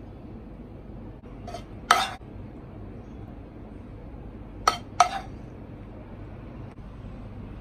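Metal spoon clinking against a frying pan while fried rice is scooped out: a few sharp clinks, one loud one about two seconds in and two quick ones close together about five seconds in, over a steady low background hum.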